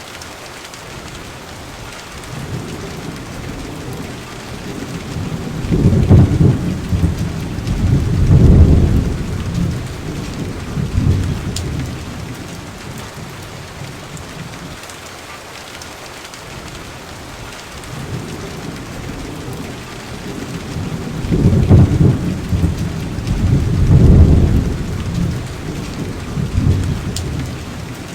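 Steady rain with thunder rumbling: two low rolls of thunder a couple of seconds apart about six seconds in, and the same pair again about fifteen seconds later.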